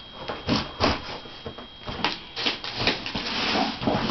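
Buck knife cutting through the packing tape on a cardboard box, with irregular knocks and scrapes and a longer tearing scrape about two and a half seconds in.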